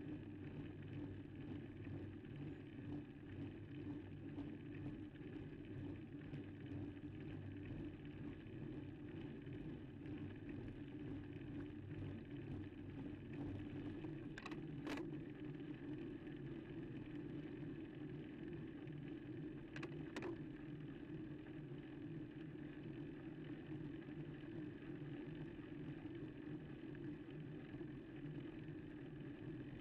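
Steady road noise of a bicycle climbing slowly: tyres rolling on tarmac and the drivetrain turning. Two short sharp clicks come about halfway through and about two-thirds of the way through.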